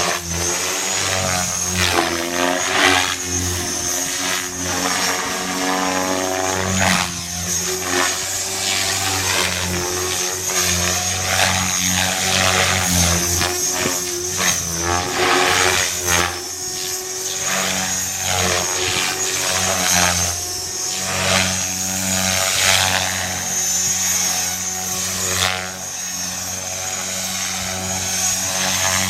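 Radio-controlled electric helicopter in flight: motor and rotor whine rising and falling in pitch, with repeated rotor whooshes, throughout.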